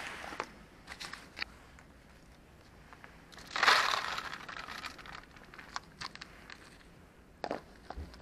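Dry cat kibble poured out of a small plastic tub onto the ground, one pour of about a second midway through. Scattered small clicks and rustles come before and after it.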